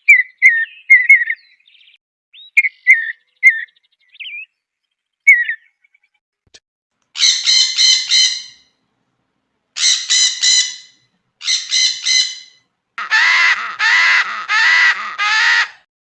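Bird calls: a run of short whistled chirps with quick pitch glides, then, from about seven seconds in, four bouts of harsh squawking calls, three or four calls in each bout, with silent gaps between.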